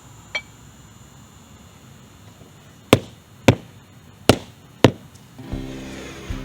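Sharp striking blows from a hand tool: one light knock, then four hard blows about half a second apart. Music comes in near the end.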